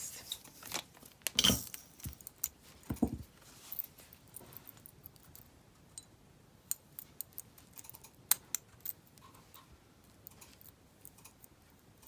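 Glass seed beads and a metal box clasp of a peyote-stitch beaded cuff clicking and rattling as it is handled and fastened on a wrist. The rattles are densest in the first few seconds, then thin out to scattered light clicks.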